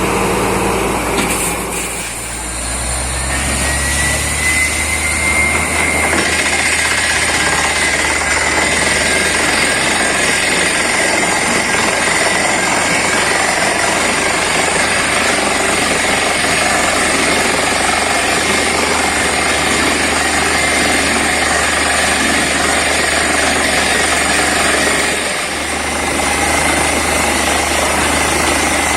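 Borewell drilling rig running steadily and loudly, engine and air-compressor noise with a hammering rattle. A high whine rises about two seconds in and then holds. The sound dips briefly near the end.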